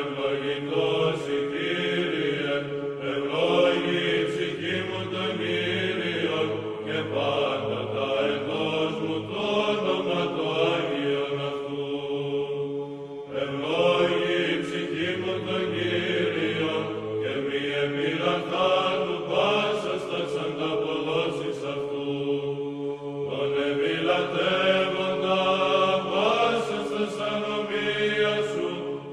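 Greek Orthodox Byzantine chant from the Divine Liturgy: voices singing a slow, winding melody over a steadily held drone note (the ison), with two short breaks between phrases.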